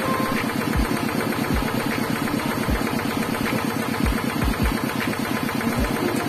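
Coconut half being scraped back and forth over the serrated metal blade of a seated coconut grater (kudkuran), a fast, even rasping rattle with an occasional low thump. It sounds like a kuliglig hand-tractor engine.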